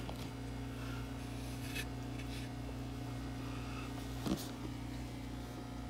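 Steady low hum of the kind electrical equipment makes, with a brief faint sound about four seconds in.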